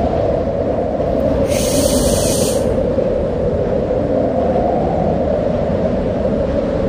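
Steady low rushing rumble of wind, with a brief high hiss about one and a half seconds in.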